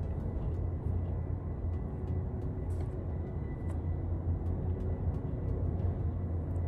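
Low, steady rumble of strong wind outside, heard from indoors, with a few faint ticks.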